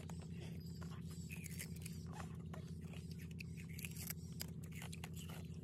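Raw sugarcane being bitten and chewed: many short, crisp crunches and cracks as the fibrous stalk is torn with the teeth, over a steady low hum.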